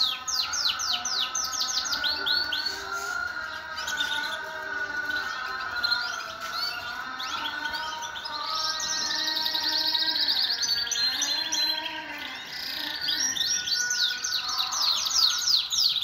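Many domestic canaries singing together in a dense chorus: fast repeated trills of quick falling notes over long, held rolling tones. The trills are loudest at the start, around the middle and near the end.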